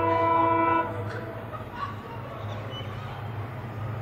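The multi-tone air horn of a pair of EMD diesel locomotives sounds and cuts off about a second in. After that the low, steady rumble of their diesel engines is heard as the train approaches.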